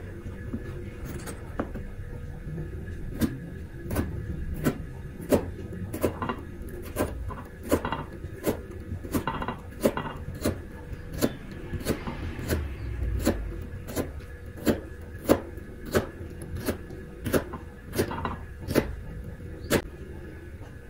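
Kitchen knife slicing repeatedly through a slab of raw potato, each cut ending in a sharp tap against the chopsticks and board beneath, at about one and a half cuts a second. The cutting starts about three seconds in and stops shortly before the end.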